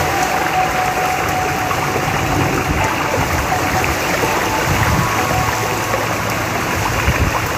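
Heavy rain pouring down, a dense steady hiss of falling water.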